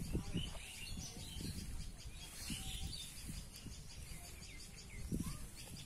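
Small birds chirping here and there, over a low rumbling noise on the microphone with a few soft thumps near the start and about five seconds in.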